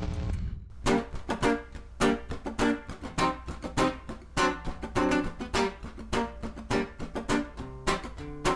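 Background music on a plucked string instrument, quick picked notes starting about a second in, after a brief gap as an earlier sustained passage fades out.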